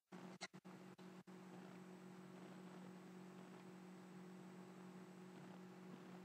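Near silence: room tone with a steady faint hum, and a few faint clicks in the first second or so.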